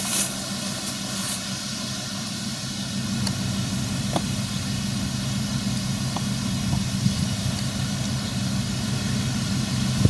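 New Holland combine harvester at work cutting grain: its engine and threshing machinery run with a steady, even hum.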